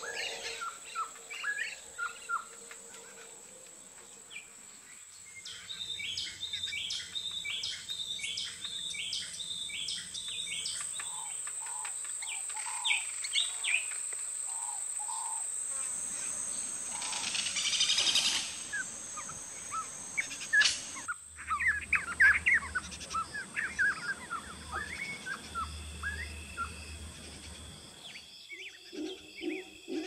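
Tropical rainforest soundscape: many different birds calling and chirping over a steady high-pitched insect drone. A short loud buzzing sound comes a little past halfway, and the mix of calls changes abruptly several times.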